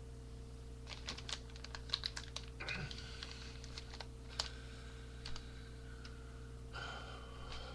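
Typing on a computer keyboard: irregular clicking keystrokes for a few seconds, with a couple of brief rustles, over a steady low electrical hum.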